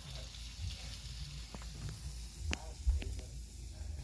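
Hot cooking oil sizzling in a pot with fry bake dough frying, and a few light clicks from a utensil in the second half.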